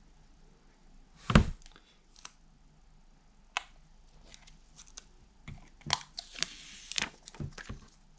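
Handling noise from a smartphone being turned over in the hands: one loud thump about a second in, then scattered light clicks and taps, and a brief rustle among several clicks near the end.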